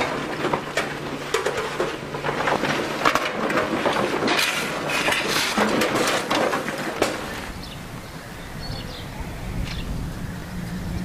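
Coal being shovelled by hand: steel shovels scraping into a coal pile and lumps of coal clattering in quick, irregular strokes. It stops about seven and a half seconds in, leaving a quieter stretch with a low rumble near the end.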